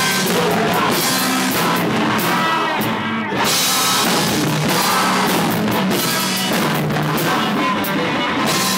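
Live rock band playing loud: distorted electric guitar over a full drum kit with crashing cymbals. The band drops back briefly about three seconds in, then comes back in at full force.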